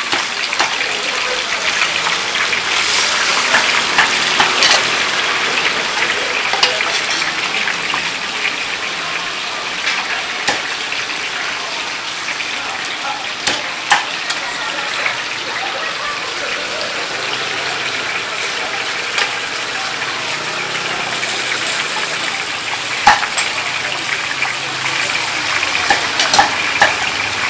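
Hot oil in a wok sizzling and crackling steadily as oyster fritters and chive rolls deep-fry, with a few sharp clinks of metal utensils.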